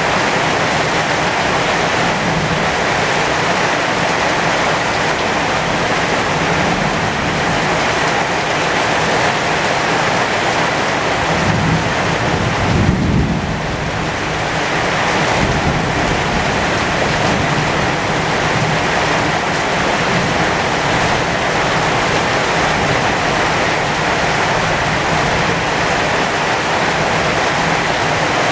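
Heavy rain pouring steadily onto the leaves of a pomegranate tree, with a low rumble of thunder about halfway through.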